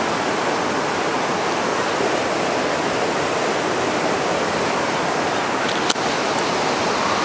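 Steady rush of floodwater flowing through a flooded yard. A single sharp click comes about six seconds in, and a faint rising tone starts near the end.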